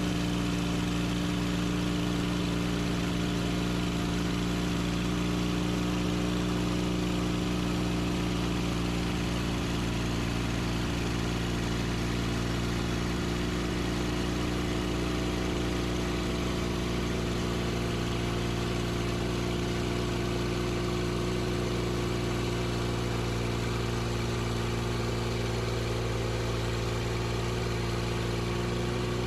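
Sawmill engine running at a steady speed, its pitch rising slightly near the end.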